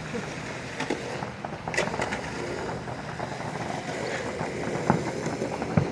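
Distant fireworks popping and crackling, scattered sharp bangs over a steady rumbling background.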